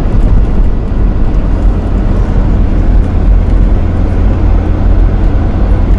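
A moving car: a loud, steady low rumble of road and engine noise with a hiss over it.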